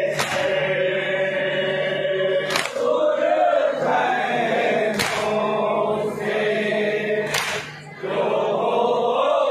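A group of men chanting a nauha (Shia lament) in unison, their voices held in long sustained lines. Four sharp slaps of unison matam (chest-beating) mark the beat, about every two and a half seconds.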